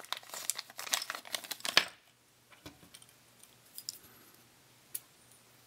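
Small HO scale metal wheelsets and their packaging being handled: a quick flurry of light clicks and rustling for about two seconds, then a few scattered soft clicks.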